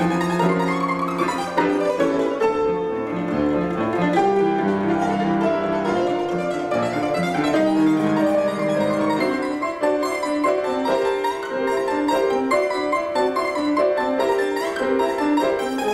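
Mandolin playing the solo part of a violin concerto in quick plucked notes, with grand piano accompaniment.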